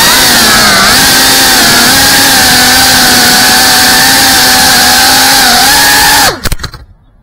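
GEPRC FPV quadcopter's brushless motors and propellers whining loudly, heard through the onboard camera. The pitch dips and levels off as the throttle changes. About six seconds in the motors cut out abruptly with a few knocks as the drone touches down and stops.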